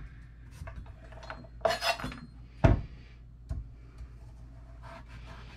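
Kitchen knife peeling and cutting a turnip on a wooden cutting board: a brief scrape of the blade just under two seconds in, a louder knock on the board about a second later, and a few light clicks of the knife between.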